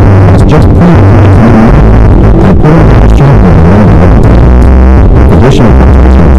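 Airline safety-video soundtrack bass-boosted until it clips: background music and narration turned into a loud, constant distorted rumble, with the words unintelligible.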